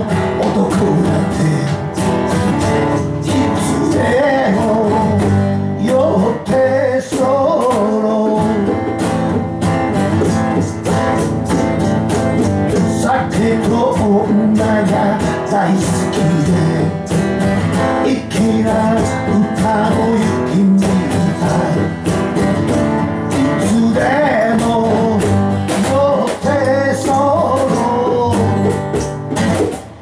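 A man singing to his own strummed acoustic guitar, the chords keeping a steady rhythm under the voice.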